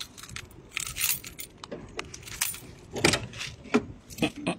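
Irregular metallic clinks and rattles of small hard parts being handled.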